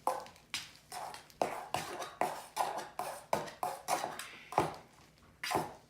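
A utensil clinking and knocking against a bowl while the falafel mixture is mixed and cut up: about a dozen irregular knocks, each dying away quickly.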